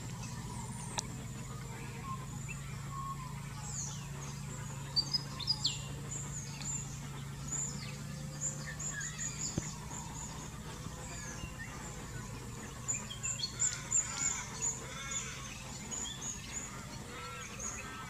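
Many short, high bird chirps and calls, with louder clusters about five seconds in and again around thirteen to fifteen seconds, over a steady low hum.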